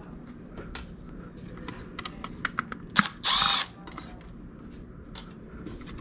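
Cordless Milwaukee driver spinning a screw in one short run about three seconds in, its motor whine rising and falling. Small clicks and taps of screws and the control-board bracket being handled come before and after it.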